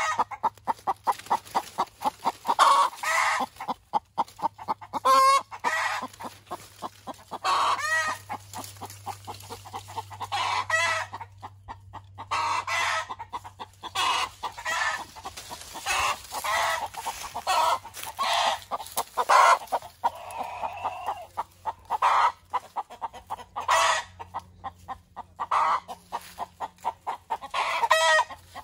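Hen cackling its after-laying egg song: fast runs of short clucks, each run broken by a longer, louder squawk, repeating over and over.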